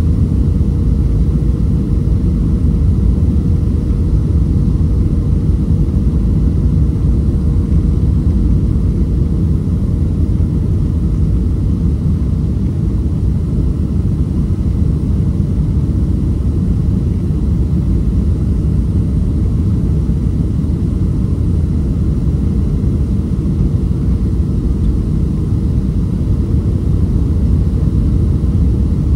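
Boeing 737-500 cabin noise on the descent to landing: a steady low rumble of its CFM56-3 jet engines and the airflow, with a thin steady tone running through it.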